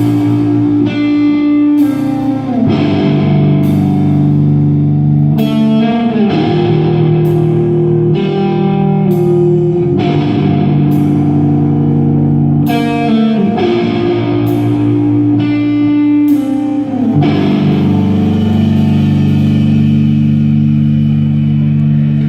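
Live instrumental post-rock: electric guitar playing sustained chords that change every couple of seconds, with drum-kit cymbal crashes on the changes. From about three-quarters of the way in, a final chord is held.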